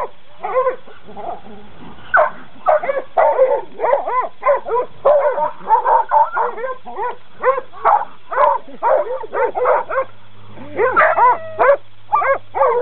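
Several coonhounds barking excitedly, many short rising-and-falling barks overlapping one another, as they worry at a wire cage trap. There is a brief lull about a second in, then the barking runs on without a break.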